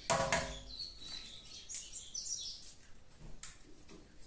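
A sharp double clack at the start, then a few light knocks and small handling sounds in the kitchen, with birds chirping faintly in the background.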